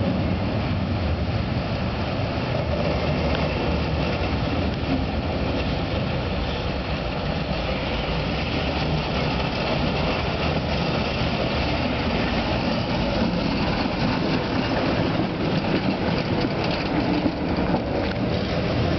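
71-608K tram running on its rails: a steady rolling rumble of wheels and running gear, with a few clicks in the last few seconds and a faint whine rising in pitch near the end.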